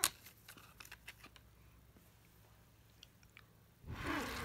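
Cat batting and biting a plastic pinwheel toy: a sharp click right at the start, a few small ticks and taps, then a burst of rustling and scraping near the end.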